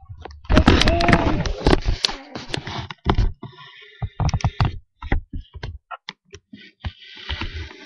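Rustling handling noise for a couple of seconds, then a scatter of light clicks and knocks from small plastic toy figures and playset pieces being moved around.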